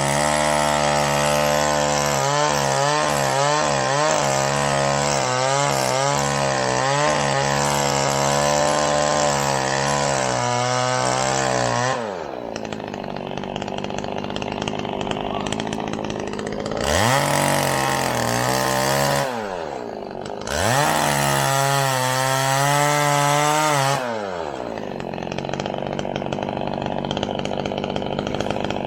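Two-stroke chainsaw running at full throttle, its pitch wavering under load as it cuts into a tree, then dropping to idle about twelve seconds in. It is revved twice briefly and falls back to idle each time.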